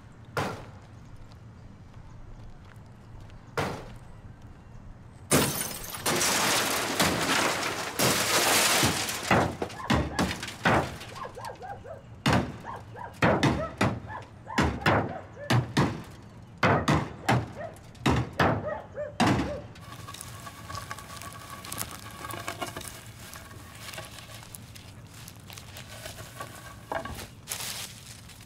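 Glass being smashed: a couple of single knocks, then from about five seconds in a long run of loud breaking and shattering blows, one after another for some fifteen seconds, before it dies down to faint, scattered sounds.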